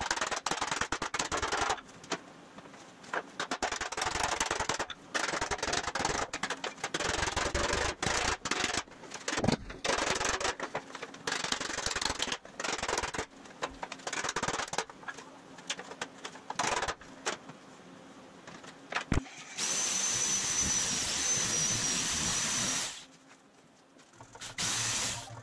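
Aluminium sheet being hand-formed with a round-headed mallet over a wooden form: irregular blows, with the sheet rattling and rubbing between them. About twenty seconds in, a handheld electric sheet-metal shear starts cutting the aluminium with a steady high whine, stops, then starts again near the end.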